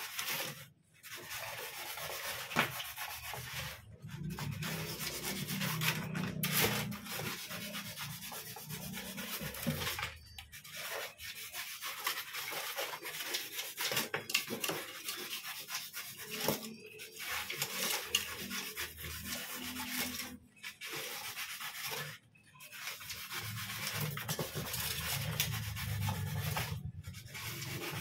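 Utility knife blade sawing through a styrofoam sheet: a continuous scraping, squeaky rubbing of blade against polystyrene. It stops briefly every few seconds as the blade is lifted and set again.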